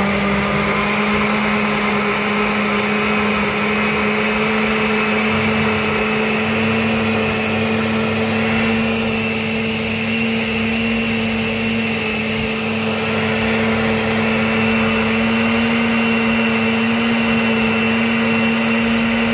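Osterizer Galaxie blender running steadily, blending cucumber and water into a green purée; a continuous motor hum and whine whose pitch creeps up slightly over the run.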